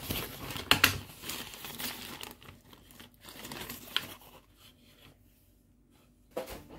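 Baking paper crinkling and rustling as it is handled and peeled away from a block of homemade butter, with a few sharper crackles. The rustling stops about four and a half seconds in.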